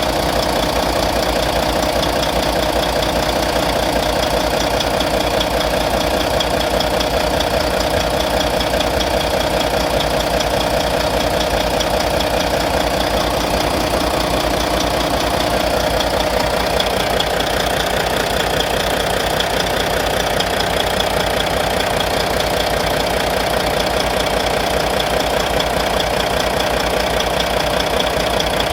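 Volvo D13 inline-six diesel engine running steadily at idle with a fast, even tapping. The owner takes it for lifter noise, which appeared after the injectors were replaced.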